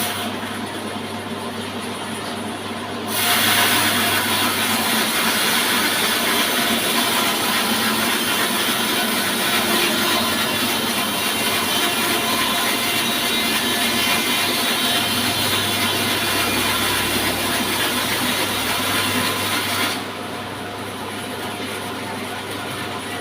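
Horizontal sawmill saw running with a steady motor hum. About three seconds in the blade cuts into wood and loud, steady sawing noise goes on for about seventeen seconds. Near the end the cut stops and the machine keeps running.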